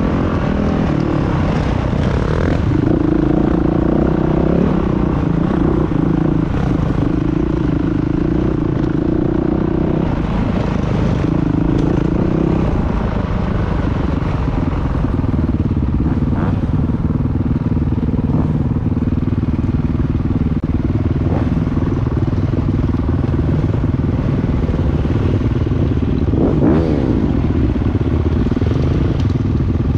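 Dirt bike engine running, its pitch shifting up and down with the throttle, with a brief rev about three-quarters of the way through.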